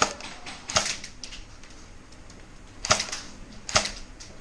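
Airsoft guns firing single shots: four sharp cracks at irregular intervals, with a fainter one about a second in.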